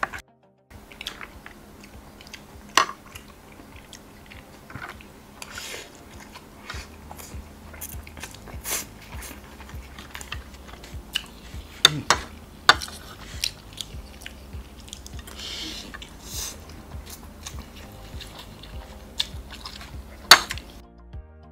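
A person eating mee kolok noodles up close: chewing and sucking in noodles, with several sharp clinks of a metal spoon and fork against the dish. The loudest clinks come about twelve and twenty seconds in.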